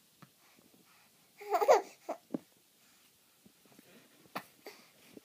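A baby babbling: one short, high-pitched vocal burst about one and a half seconds in, followed by a couple of brief sounds.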